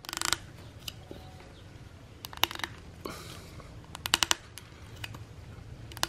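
Rattan strip clicking and scraping against a wooden knife sheath as it is threaded under the woven band and worked tight by hand. A short scrape at the start, then scattered sharp ticks, with a quick run of several ticks about four seconds in.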